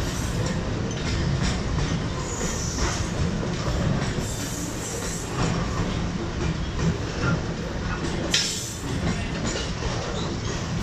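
Container-laden freight wagons rolling steadily past on the track: a continuous low rumble of wheels with clattering on the rails.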